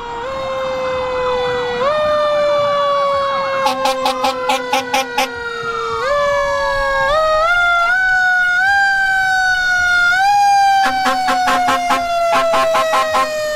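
Several fire truck sirens sounding at once. One long wailing tone slowly falls and is pushed back up every couple of seconds, under fast warbling yelps, with bouts of rapid pulsing blasts near the start, mid-way and toward the end.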